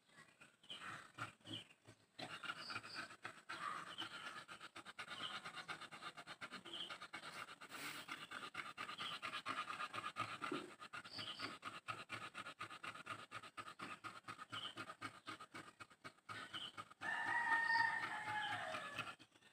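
Animal sounds: a continuous run of rapid short pulses with scattered short high chirps, and a louder drawn-out call falling slightly in pitch near the end.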